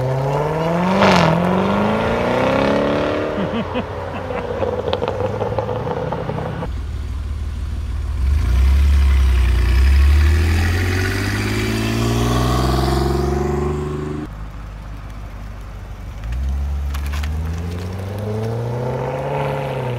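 Three cars driving off in turn, each engine revving as it accelerates away, with the sound changing abruptly between them. First a white C7 Corvette's V8 rises in pitch as it pulls off. Then a DeLorean passes with a deep, heavy rumble, and a grey C7 Corvette's V8 revs up near the end.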